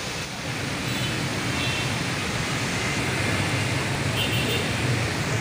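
Steady hiss of heavy rain falling outdoors, with a low rumble of road traffic underneath.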